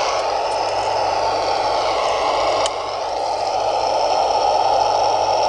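Steady hiss of FM static from a Yaesu VX-5R handheld radio's speaker, open on the AO-51 satellite downlink between transmissions, with faint wavering tones drifting through it.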